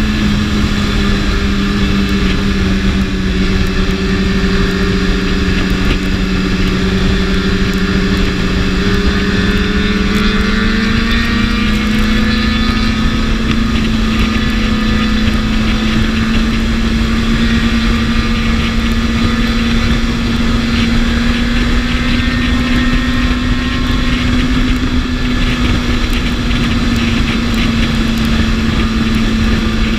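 BMW S1000RR's inline-four engine running steadily at cruising speed, over a constant rush of wind. Its pitch rises slightly about ten seconds in, then holds.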